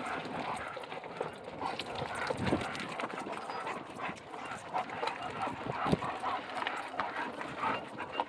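Several dogs running at a jogging pace, their paws making many quick irregular clicks and taps on the ground.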